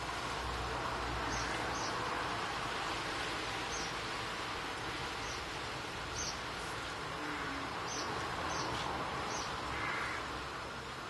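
Steady outdoor background hiss, with short high chirps from a small bird every second or two.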